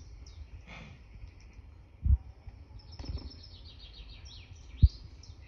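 Birdsong played through laptop speakers: a run of short high chirps and a fast trill. Two dull low thumps cut through it, one about two seconds in and one near the end.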